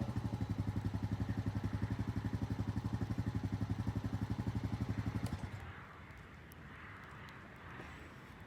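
Small engine idling with an even, pulsing beat, then switched off and stopping abruptly about five seconds in.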